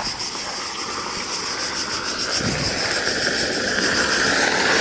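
Cicadas buzzing steadily in a high pulsing drone while a car approaches, its noise growing louder over the last two seconds.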